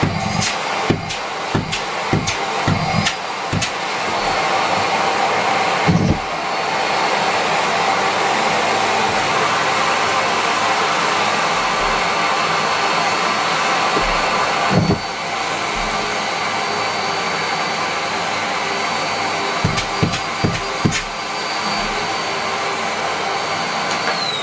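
Miele Complete C3 canister vacuum cleaner running at full suction with a steady high whine, with irregular knocks as socks are drawn into the hose. Right at the end the motor is switched off and its whine starts to fall in pitch as it winds down.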